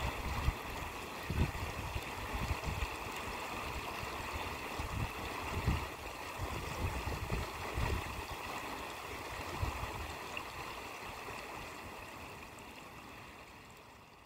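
Water rushing through a fish ladder on a stream in spate after prolonged rain, with wind buffeting the microphone in gusts. The sound fades out over the last few seconds.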